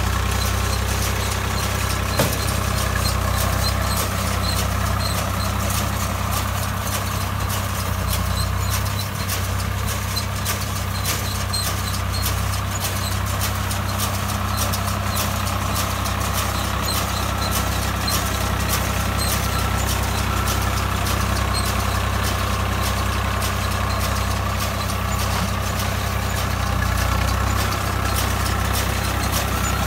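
Swaraj 744 XM tractor's diesel engine running steadily at an even speed, with a light regular ticking over it and a single sharp knock about two seconds in.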